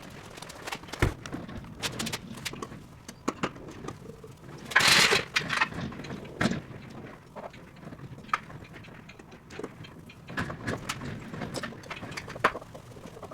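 Irregular knocks and clicks of hand work on fittings and materials, with a louder scraping rush about five seconds in.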